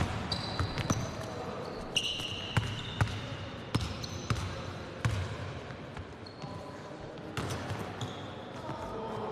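A basketball bouncing on a gym court during play, with irregular dribble thuds and short high sneaker squeaks.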